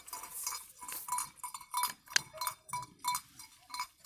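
Bells on cattle clanking irregularly, several strokes a second, as the herd moves.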